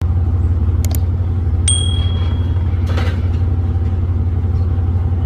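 Steady low rumble of an idling railway locomotive. Two sharp metallic clicks about a second in, then a single ringing metal ping that fades over about a second.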